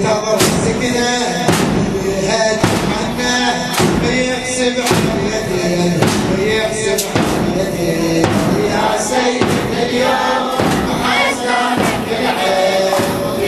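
Shia Ashura mourning chant (latmiya): a group of men's voices chanting a lament together, with loud rhythmic chest-beating strikes about once a second.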